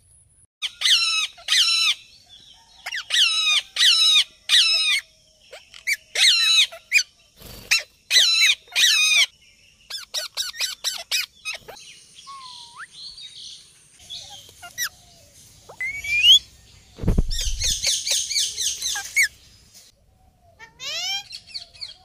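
Indian ringneck parakeets calling: short, shrill squawks in quick runs of two to four, then a thicker burst of calling past the middle. Two dull thumps cut in, one about a third of the way through and a louder one just before the dense burst.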